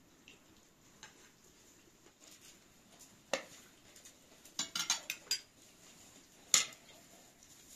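Metal spoons clinking and scraping against plates and a serving dish during a meal: scattered single clinks, a quick run of them a little past halfway, and the loudest clink near the end.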